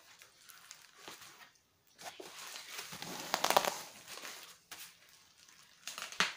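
Parcel packaging being handled and pulled open by hand: the brown wrapping crinkles and tears in bursts, loudest a little past the middle, with a couple of sharp snaps near the end.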